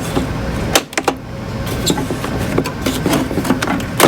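Sharp plastic clicks and knocks from the oscilloscope's case parts being handled and unclipped, a couple about a second in and another near the end, over a steady low mechanical hum.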